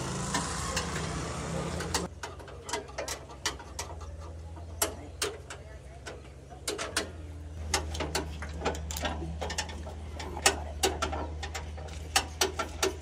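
Irregular metallic clicks and taps of hydraulic hose fittings being fitted to a control valve block and tightened with a spanner, over a steady low hum.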